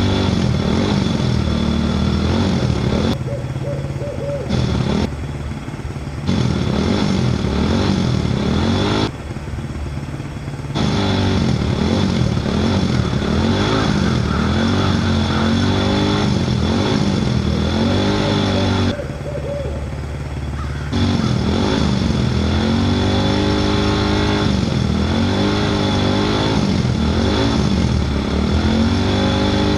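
A small vehicle's engine revving up and down over and over. It drops back abruptly a few times before picking up again.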